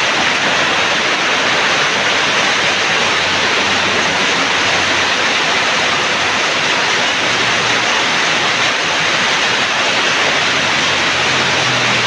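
Heavy tropical rain pouring down in a steady, even hiss.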